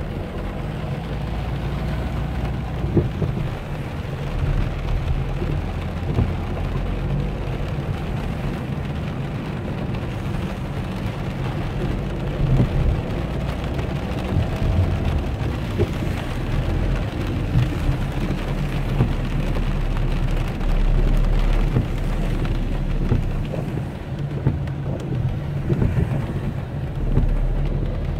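Rain falling on a car's roof and windshield, heard from inside the cabin as a steady patter with scattered drop hits, over the low rumble of the car driving on a wet road.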